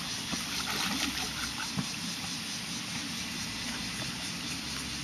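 A large hooked fish splashing and thrashing at the surface of the water as it is played toward the bank, with light irregular splashes.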